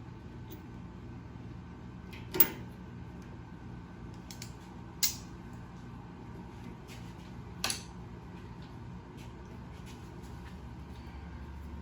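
Three sharp knocks of tools or parts being handled, about two and a half seconds apart, over a steady low hum.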